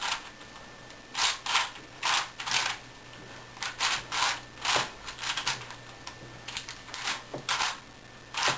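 Brand-new V-Cube 5 (5x5x5 puzzle cube) being turned by hand: a series of short plastic rasping clicks, one per layer turn, about a dozen in irregular groups, the cube turning well.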